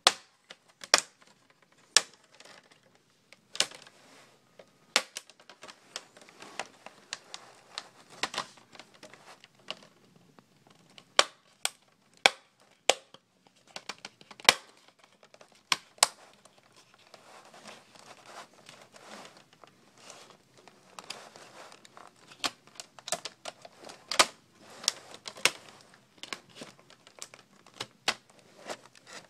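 Plastic screen bezel of an HP Pavilion g6 laptop being pried off the lid by hand: a long run of sharp, irregular clicks and snaps as its clips pop free, with faint plastic creaking and crackling between them.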